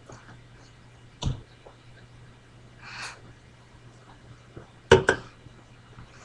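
A person's short mouth and throat sounds: a sharp click, a breathy gasp, then a quick, louder double burst near the end.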